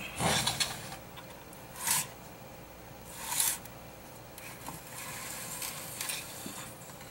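Circuit board of a car amplifier rubbing and scraping as it is slid out of the amplifier's heat-sink casing, in three short scrapes over the first few seconds followed by fainter rubbing.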